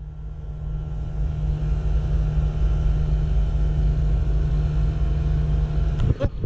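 Wind buffeting the camera microphone: a steady, fluctuating low rumble that builds over the first second or so.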